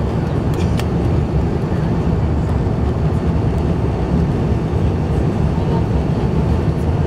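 Steady low rumble inside the cabin of an Airbus A350-900 moving along the ground, from its Rolls-Royce Trent XWB engines and rolling gear. A couple of faint clicks come about a second in.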